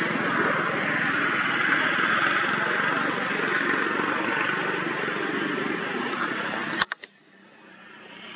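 Steady outdoor background noise: an even hiss with a low rumble under it. About seven seconds in it cuts off with a click, then slowly fades back up.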